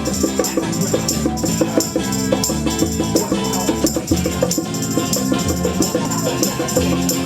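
Live rocksteady band playing an instrumental passage: bass, guitar and drums with a shaker keeping a steady rhythm.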